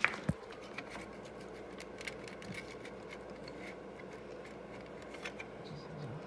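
Scattered light metallic clicks and clinks of hand tools and engine parts being handled, with two sharp knocks in the first moment, over a steady hum.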